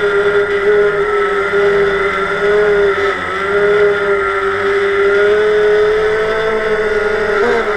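DJI Phantom quadcopter's four brushless motors and propellers whining steadily in flight, heard up close from the camera mounted on the drone. The pitch wavers slightly and dips briefly about three seconds in.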